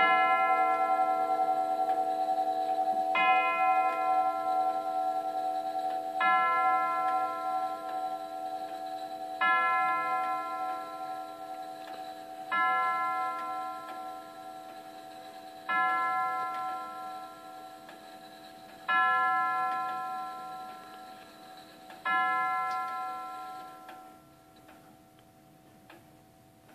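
Herschede nine-tube grandfather clock striking the hour on one tubular bell: eight slow hammer strikes about three seconds apart, each ringing on and fading. After the last strike the ringing dies away, leaving the faint tick of the movement.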